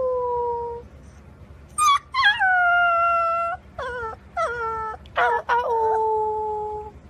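Golden retriever puppy howling: a string of high, held howls, the longest lasting about two seconds, with three short calls between them near the middle.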